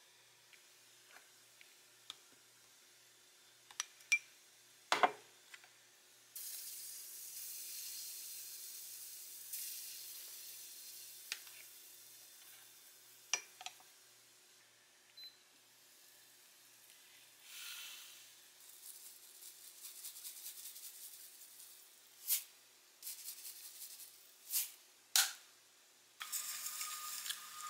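Kimchi fried rice hissing and sizzling in a small lidded black pot, broken by sharp clinks of a spoon, lid and dishes. The hiss grows louder near the end.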